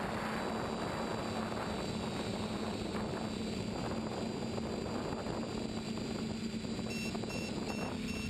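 FPV quadcopter's electric motors and propellers running in flight: a steady hum under a rushing wash of wind noise on the onboard camera's microphone.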